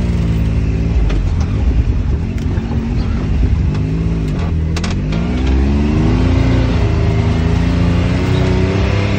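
Side-by-side UTV engine running under load on a rough trail, with a heavy low rumble. Around four seconds in the revs dip, then climb again, and a few brief knocks sound as the machine bounces.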